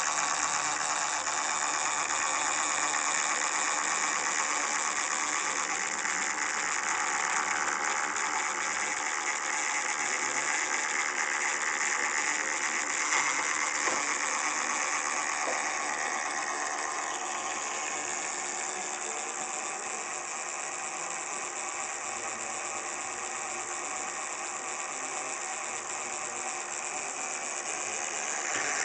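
Miniature dynamo driving a scale model drill press through a flat belt: a steady mechanical whir, a little softer in the second half and louder again at the very end.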